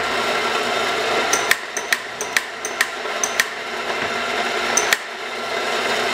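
Rancilio Rocky coffee grinder running steadily, grinding espresso beans through freshly replaced burrs into a portafilter. A run of about a dozen sharp metallic clicks and taps comes between about one and a half and five seconds in, from the metal portafilter worked against the grinder under the spout.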